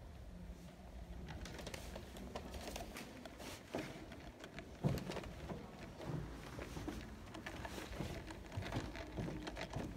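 Quiet, irregular tapping and clicking over a low steady rumble, with one louder knock about five seconds in.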